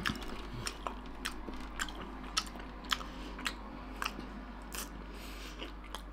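A toothless man chewing pork belly slices with his gums: a series of short, wet mouth smacks and clicks, about one every half second.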